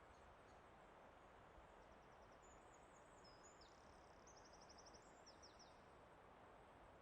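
Faint forest ambience: a steady low rush of background noise, with a small songbird singing high, fast trills for a few seconds in the middle.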